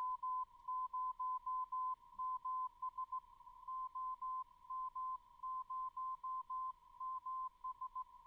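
Morse code (CW) signal demodulated by a software-defined radio in CW mode: a tone of about 1 kHz keyed on and off in dots and dashes, over faint receiver hiss. The tone holds a steady pitch with no retuning.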